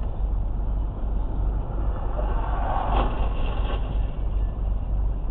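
Steady low road and engine rumble of a moving vehicle as picked up by a dash camera, with a short swell of noise and a sharp knock about three seconds in.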